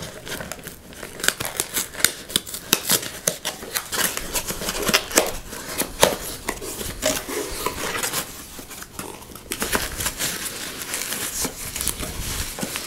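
Cardboard shipping box being opened by hand: packing tape pulled and torn, cardboard flaps scraping and creaking as they are folded back, then foam packing rustling as it is pulled out. A steady run of short scrapes, crinkles and clicks.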